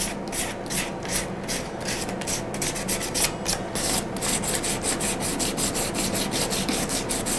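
Sandpaper rubbed by hand in quick, even back-and-forth strokes, about four a second, over the fin edges of a cast reproduction largemouth bass: light sanding to take off the mold line before painting.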